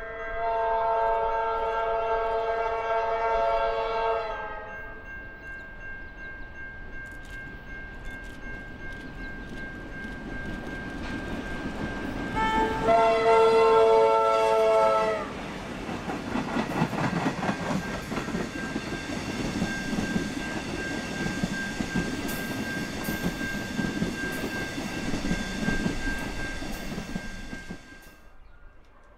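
Diesel locomotive air horn sounding twice, a chord of several notes: a blast of about four seconds at the start and a louder one of about two and a half seconds about halfway through as the train comes close. The locomotives and the wagons of the passing train then rumble and clack over the rails until the sound cuts off near the end.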